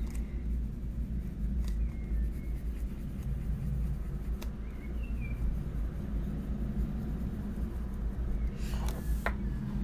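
Faber-Castell Polychromos coloured pencil scratching on paper as it shades, over a low steady hum, with a few faint clicks.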